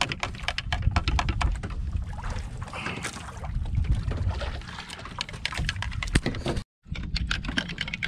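A metal spoon clinking rapidly against ceramic coffee mugs as the coffee is stirred, over a steady low rumble of wind and water. The sound cuts out for a moment near the end.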